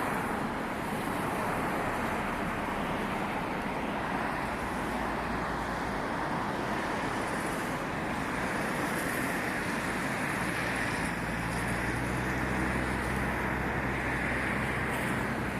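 Steady road traffic noise, with a vehicle's low engine hum growing from about ten seconds in.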